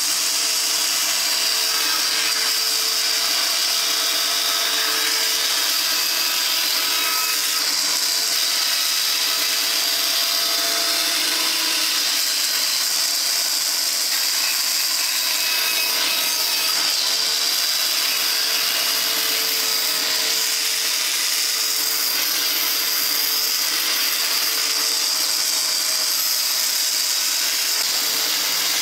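Band saw running steadily as it cuts a wooden spoon blank out of a block of wood: a constant hiss with a steady hum beneath.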